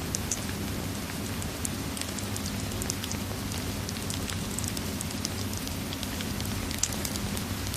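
Steady rain mixed with a crackling fireplace: an even hiss of rain over a low steady rumble, with scattered short pops and snaps from the fire.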